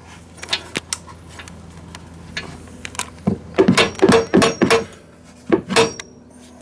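A hammer tapping the old trailing arm bolt out of a DeLorean's rear trailing arm and bushing, metal striking metal with a short clanging ring. A few scattered taps come first, then a quick run of about half a dozen harder strikes past the middle, then two more.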